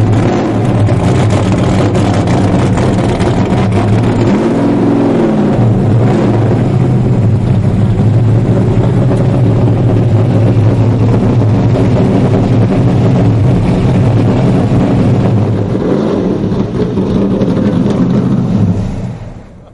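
Loud car engine running steadily, with a brief rise and fall in pitch about four seconds in, fading out near the end.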